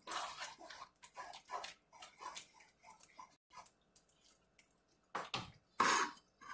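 A wooden spoon stirring a thick, simmering tomato meat sauce in a pan, making short, wet strokes about two or three times a second. Two louder strokes come near the end.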